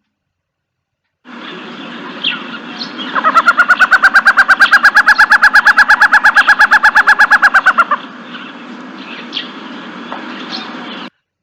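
A bird calling a long, fast, even series of identical notes, about ten a second at a steady pitch for nearly five seconds. Fainter scattered calls of other birds sound underneath.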